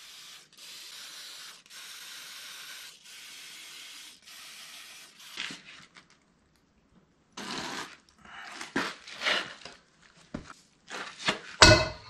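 Aerosol can of penetrating oil hissing in several short sprays onto the skid steer's rusted wheel nuts. After a pause come metal clicks and clanks of a socket and breaker bar being worked on the lug nuts, with one loud knock near the end.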